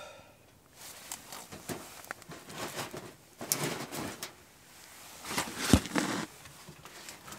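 Clothing rustling with a few knocks and clicks as someone leans over and handles a small wood-burning tent stove. The loudest is a sharp knock near the end.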